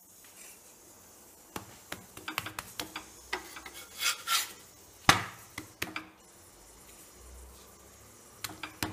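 Steel spatula scraping and tapping against a tawa while turning and pushing a stack of chapatis heating on it: a run of clicks and short scrapes with one sharp knock about five seconds in, quieter for a couple of seconds, then a few more clicks near the end.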